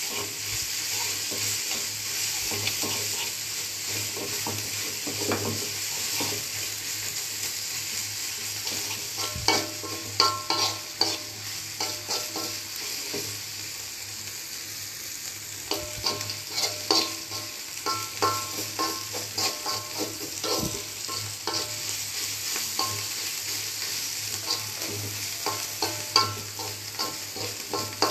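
Spice paste sizzling steadily in hot oil in a wok, with a metal spatula stirring and scraping against the wok in several bouts, the scrapes making the wok ring briefly.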